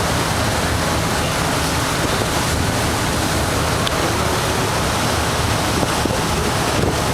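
Steady rushing noise with a low hum underneath, from a passenger ferry under way.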